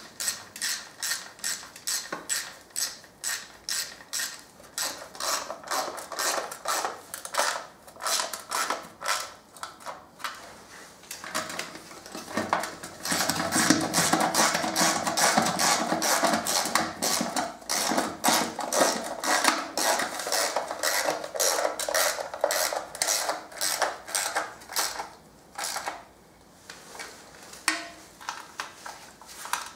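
Hand socket ratchet clicking in quick runs as the oil sump's nuts and bolts are tightened, with the clicking loudest and densest in the middle.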